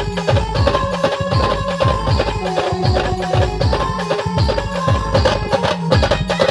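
Marathi band music with a steady beat of low drum hits, each dropping in pitch, under a held melody line.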